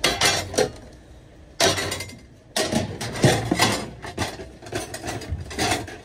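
Kitchen containers and a metal bowl clattering and clinking as they are handled and set down on stainless steel worktops. A short clatter at the start, another about a second and a half in, then near-continuous clattering through the second half.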